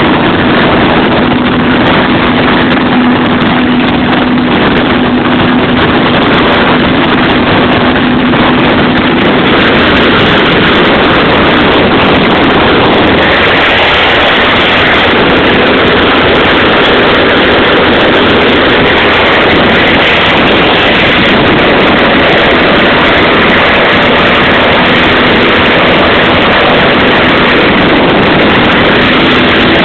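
Single-engine light aircraft's engine and propeller running steadily in flight, a loud, continuous drone heard from inside the cockpit.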